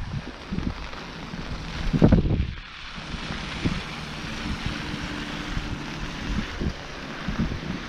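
Wind buffeting the camera microphone in heavy gusts, the loudest about two seconds in, over a steady hiss of rain. A faint low steady hum runs underneath.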